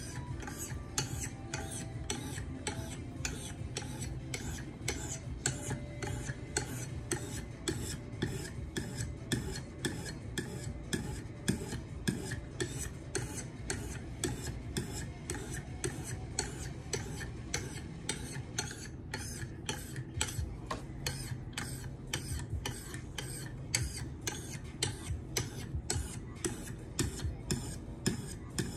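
600 grit stone on a KME guided sharpener scraping back and forth along a knife's edge in steady, even strokes, about two a second.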